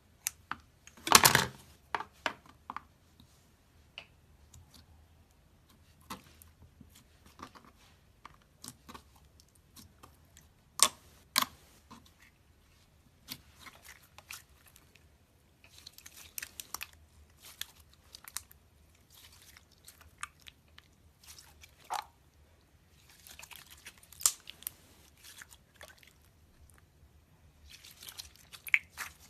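Slime being squeezed and worked by hand, giving scattered sharp clicks, pops and short crackly, squishy bursts. The loudest burst comes about a second in.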